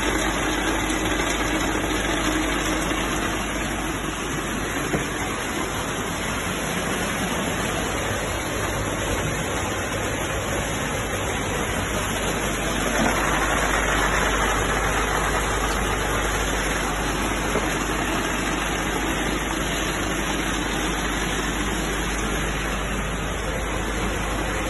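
Steady mechanical running noise of an Angelon colour sorting machine processing peeled cashew nuts, a hum with a hiss over it. It grows a little louder and hissier for a few seconds about halfway through.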